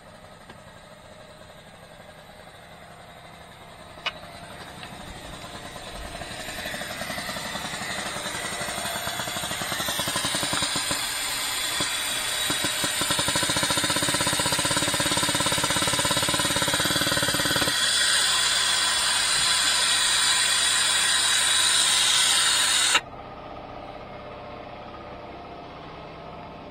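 Air-powered vacuum brake bleeder running on compressed air at a caliper bleeder screw, drawing brake fluid out during the ABS bleed: a steady hiss that grows louder and cuts off abruptly near the end. A single click about four seconds in.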